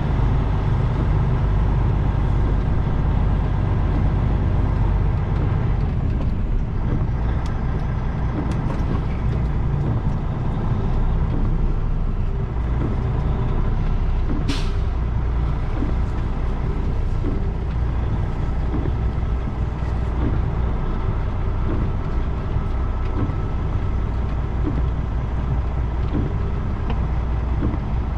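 Semi truck's diesel engine running steadily at low speed while the rig reverses, with one short hiss of air about halfway through.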